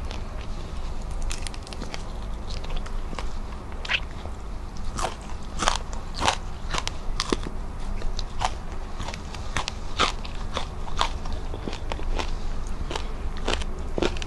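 Close-miked crunching and crackling of a person biting and chewing crispy fried tilapia. It is a quick run of sharp crunches, loudest from about five to eleven seconds in.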